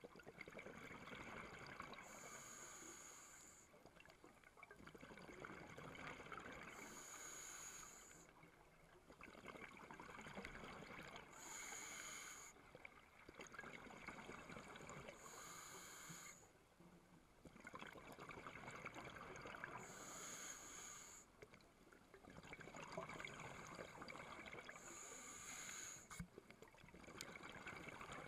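A scuba diver breathing through a regulator, heard through an underwater camera housing: a hissing inhalation about every four to five seconds, each followed by a longer rush of exhaled bubbles.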